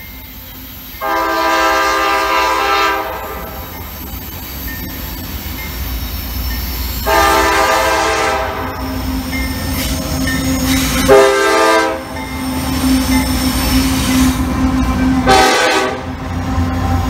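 Approaching freight train's diesel locomotive sounding its multi-chime air horn in two long blasts, a short one and a long one, the long-long-short-long grade crossing signal. Underneath, the rumble of the diesel locomotives grows louder as they pull up and pass close by near the end.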